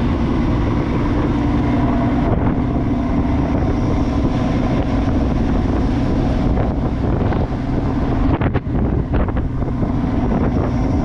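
Crab boat's engine running steadily, with wind buffeting the microphone.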